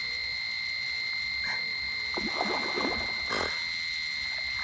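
Electronic fishing bite alarm sounding one continuous, steady high-pitched tone: a fish running and taking line on a rod left in its rest.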